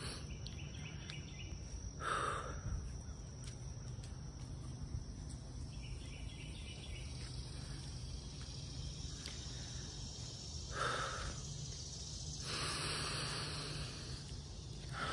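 Woodland ambience: faint insect chirping over a steady low rumble. There are brief louder rustles about two and eleven seconds in, and a longer hiss near the end.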